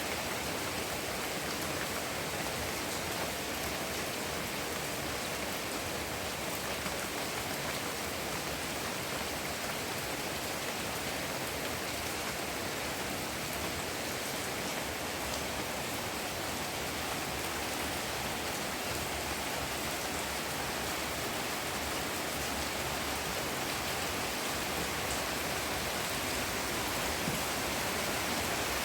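Heavy rain falling steadily, an even hiss with scattered faint drop ticks.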